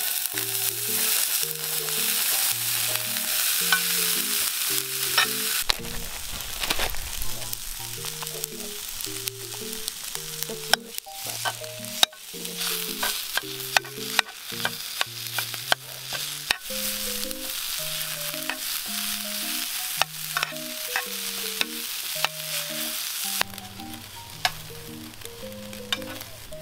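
Fried rice sizzling in a square pan on a portable butane stove, stirred and scraped with a metal spoon that clicks against the pan again and again. The sizzle is strongest for the first several seconds and eases off near the end, with soft background music playing underneath.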